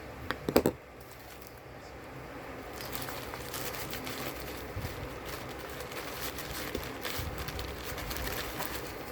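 Handling sounds from unboxing a clear silicone phone case: a quick cluster of sharp knocks and clicks about half a second in, then steady light crinkling and clicking of the case and its plastic packaging being handled.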